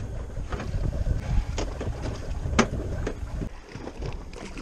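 Wind rumbling on the microphone over water moving against a boat hull. A few sharp splashes, the loudest about halfway through, come as a large grouper is dropped back over the side into the sea.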